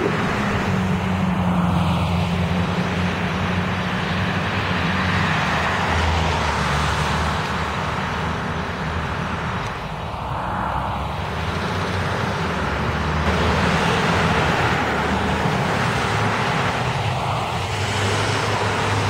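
Road traffic on a busy street: car and bus engines running under steady tyre noise that swells and fades several times as vehicles pass.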